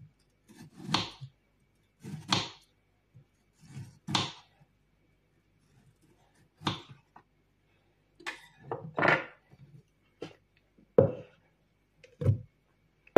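Kitchen knife cutting a peeled kiwi on a wooden cutting board: a series of separate slicing strokes, about one every second and a half at first. Near the end come sharper knocks as the kiwi pieces go into a plastic jug.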